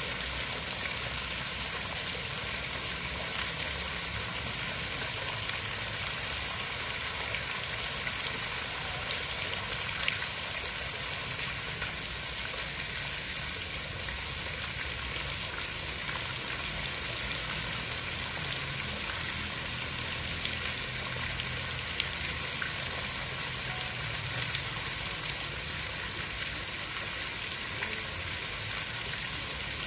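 Steady hiss of water, even throughout, with a low rumble underneath and a few faint ticks.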